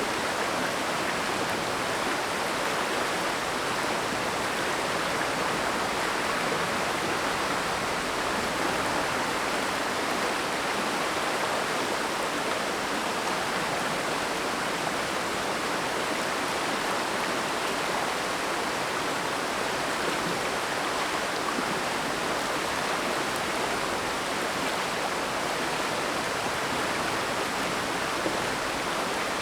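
Mountain stream water rushing steadily, an even, unbroken hiss with no single splashes standing out.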